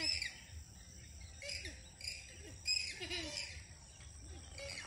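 Wetland birds calling, short chirps and falling whistled notes in clusters about every second, over a steady high-pitched insect drone.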